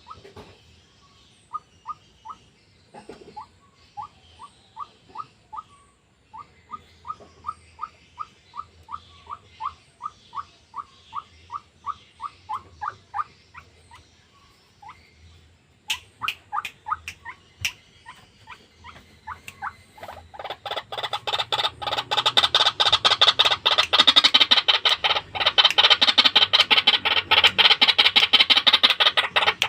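White-breasted waterhen (ruak-ruak) calling: a long series of short notes, about two a second, then a quicker run, and from about 20 s in a much louder, rapid, harsh chattering.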